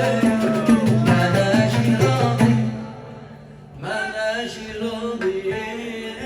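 Instrumental passage of a Yemeni song: a melody played over steady percussion, dropping away briefly about halfway through and then coming back in.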